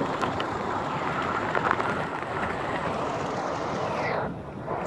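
Hurricane wind and heavy rain near the storm's peak, blowing in a steady rush with a few sharp ticks in the first two seconds. The wind eases briefly about four seconds in.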